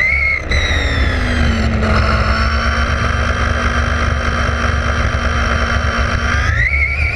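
Electric motor and drivetrain of a Vaterra Glamis UNO RC buggy whining at speed, heard from its onboard camera over low road and wind rumble. The pitch drops about half a second in, holds steady, then rises again near the end as the buggy accelerates.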